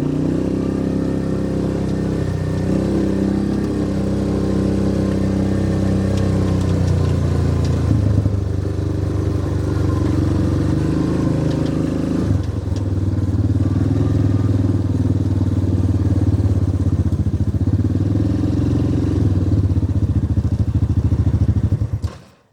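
Yamaha Rhino side-by-side utility vehicle's engine running as it drives, its pitch shifting a couple of times as the speed changes; the sound stops suddenly near the end.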